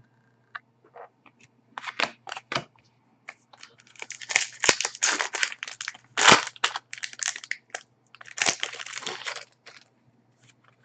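Trading-card pack wrapper being torn open and crinkled by hand, with irregular crackling that is busiest in the middle and stops shortly before the end.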